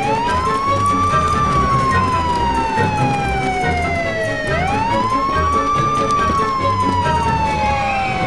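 Fire truck siren wailing: a quick rise in pitch, then a long slow fall, twice, about four and a half seconds apart.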